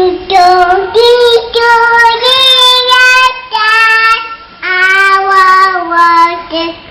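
A young child's voice singing a simple tune of long held notes, about a second each, with short breaks between them.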